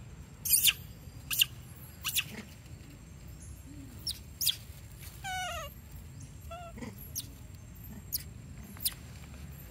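Young monkey giving a string of short, sharp, high squeaks spaced about a second apart, with one longer wavering whimper that falls in pitch about halfway through.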